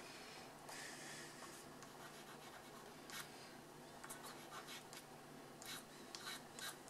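Faint scratching of a soft pastel stick stroked over pastel paper in short, irregular strokes, with rubbing as the colour is worked in by hand.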